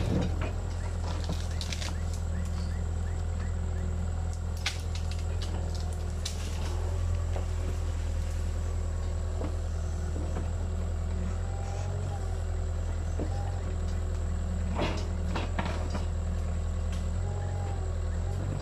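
Caterpillar 305.5E2 mini excavator's diesel engine running steadily under work, with scattered sharp knocks from the machine digging and a couple of brief squeaks.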